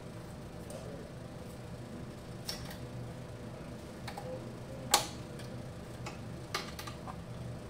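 A few small, sharp clicks and snaps from fingers handling wires and plastic connectors inside an opened tourniquet machine, the loudest about five seconds in, over a steady low hum.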